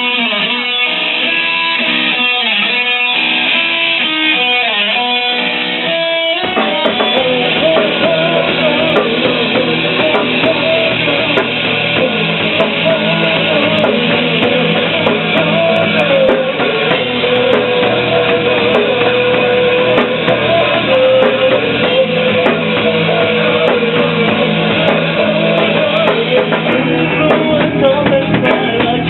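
Instrumental song opening: picked guitar notes, then the full band with drums comes in about six seconds in, carrying a guitar-led melody.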